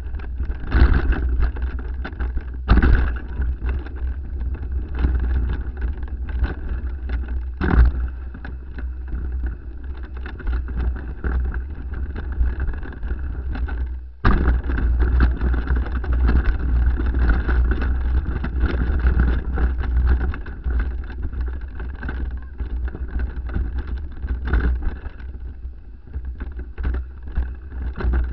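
Mountain bike riding fast down a rough, rocky trail, heard through an action camera mounted on the rider or bike: constant wind and road-type rumble on the microphone with frequent knocks and rattles as the bike hits rocks and bumps. The noise drops briefly about halfway through, then comes back suddenly.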